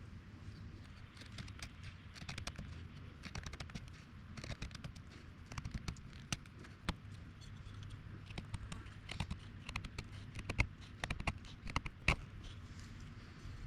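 Irregular small clicks and light knocks, a few of them sharper near the end, over a low steady rumble.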